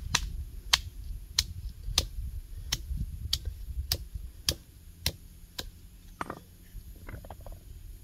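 A hammer striking fresh green walnuts in their husks on a stone slab: about ten sharp blows at an even pace, a little under two a second. Near the end the blows stop and give way to a few softer crunches and rustles as the crushed pieces are handled.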